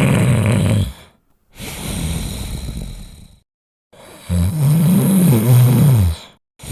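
A person snoring: two loud snores with a wavering pitch, the first ending about a second in and the second lasting over two seconds, with a quieter breath out between them and a third snore starting at the end.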